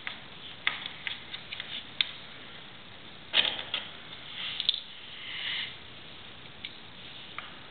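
A screwdriver clicking and scraping against the screws and plastic of a flush-mounted double socket as it is fixed into its wall box. There are scattered small ticks, a short rasping scrape about three seconds in, and a longer softer scraping sound around five seconds.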